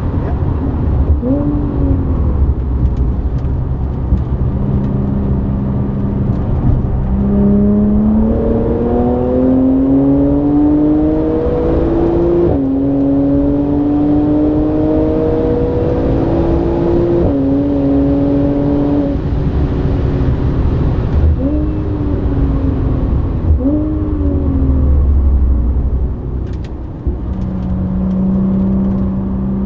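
Audi B8 S4's tuned supercharged 3.0-litre V6 with a Milltek non-resonated exhaust, heard from inside the cabin under full throttle on track. It climbs through the revs, drops sharply in pitch at an upshift about twelve seconds in, climbs again and shifts up once more about five seconds later. It then lifts off, with short throttle blips on downshifts, and settles to a steady lower note near the end.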